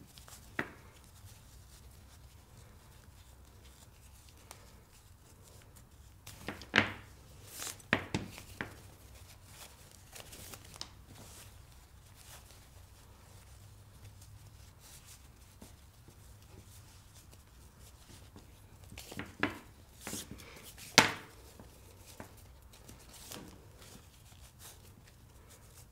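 Fabric tube with plastic beads inside being handled as overhand knots are tied and pulled tight: scattered rustles and sharp taps of the beads, with quiet gaps between. The taps bunch up about seven to nine seconds in and again around twenty seconds in, the sharpest knock coming about twenty-one seconds in.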